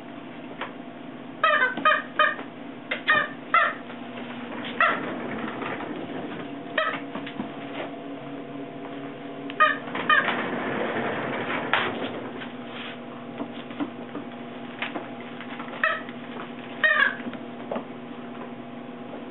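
Puppies play-wrestling, with clusters of short, high-pitched yips and squeals spread through the stretch, and a rougher, noisier passage about ten seconds in.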